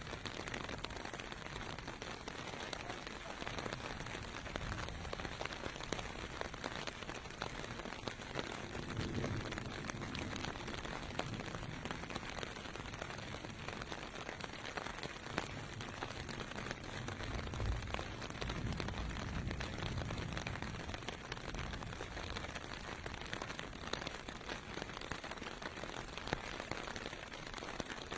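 Steady rain falling on pavement: a dense, even hiss full of small drop impacts. Low rumbles from distant traffic passing swell up twice, about nine and about eighteen seconds in.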